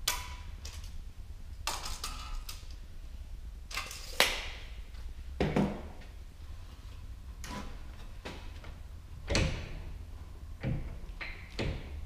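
Scattered sharp metallic knocks and clanks from handling a galvanized sheet-metal duct connector at a hand sheet metal brake, about ten separate hits with the loudest about four seconds in, over a steady low hum.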